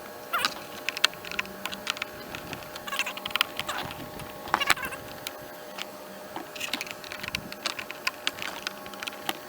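Scattered clicks, taps and light knocks of plastic and metal parts being handled and fitted as a Stihl BR600 backpack blower is reassembled.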